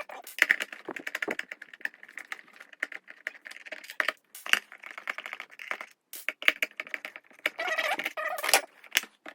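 Plastic casing of a mini washing machine being taken apart by hand: a run of irregular clicks, taps and rattles, with a squeak of plastic or screws near the end.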